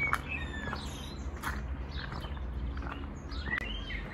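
Small birds chirping with short notes that rise and fall, over a low steady background hum, with a few sharp clicks or taps.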